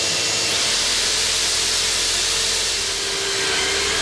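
Vacuum cleaner running with a steady hiss, together with an electric drill cutting a hole through a plywood engine bulkhead; a single motor whine holds steady and sags slightly near the end.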